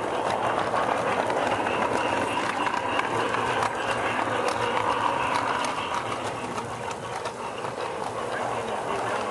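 G-scale garden railway train rolling along the track, heard from on board: a steady rolling rumble with many small clicks from the wheels on the rails.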